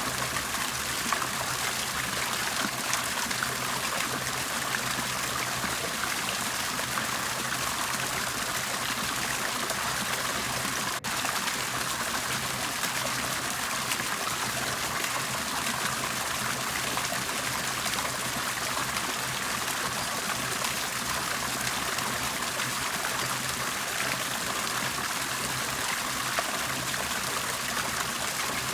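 Steady bubbling, trickling water, an even continuous splashing with a momentary dropout about eleven seconds in.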